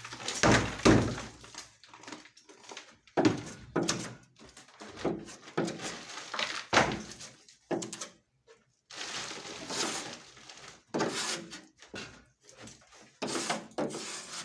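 Irregular knocks, thuds and scraping from hand work on a POP ceiling, in a small room that echoes.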